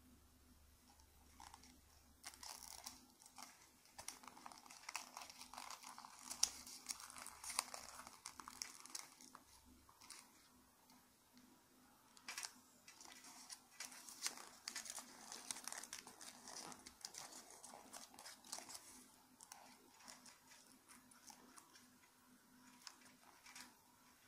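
Origami paper being folded and creased by hand close to the microphone: soft crinkling and rustling with small crackles, starting about two seconds in, easing briefly around the middle, then picking up again.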